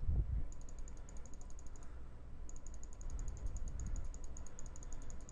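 Faint, rapid, evenly spaced ticking, about nine a second, over a low steady hum; the ticking breaks off briefly about two seconds in.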